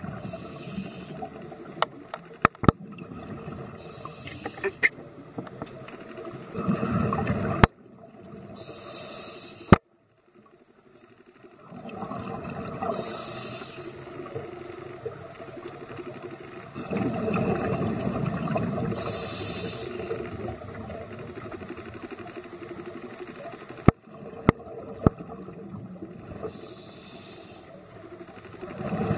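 A scuba diver breathing through a regulator underwater. Short high hisses recur every few seconds as he breathes in, and longer low rumbles of bubbles follow as he breathes out. A few sharp clicks are heard.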